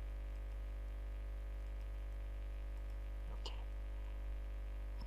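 Steady low electrical mains hum on the microphone, with one brief faint sound about three and a half seconds in.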